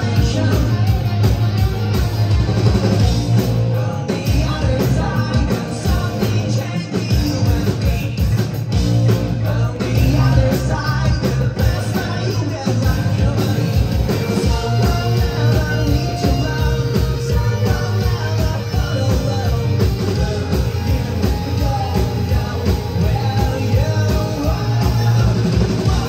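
Rock band playing live at full volume, with drums, bass and singing.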